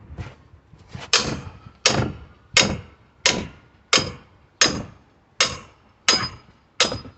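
Small sledgehammer striking a pry bar being driven between wooden pallet boards: about nine sharp metal-on-metal blows in a steady rhythm, roughly one and a half a second, each with a short ring.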